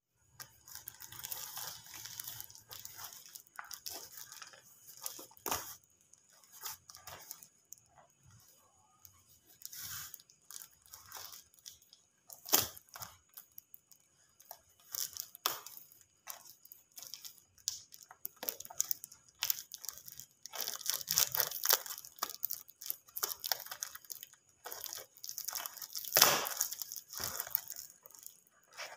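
Parcel wrapped in brown plastic and packing tape being handled and opened: irregular crinkling, crackling and tearing of the plastic and tape, louder and busier in the last third. Near the end there are scissors cutting into the wrapping.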